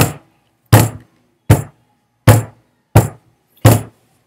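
Six sharp thumps at an even beat, about one every three quarters of a second, each dying away quickly.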